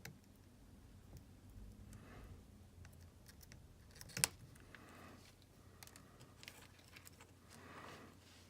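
Faint light clicks and taps of small tools and parts being handled during bench soldering work, with one sharper click about four seconds in.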